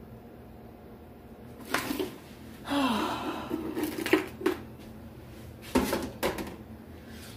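Knocks and clatter of plastic containers being moved about and pulled out of a low kitchen cabinet, with a longer scrape about three seconds in and a few more knocks near the end.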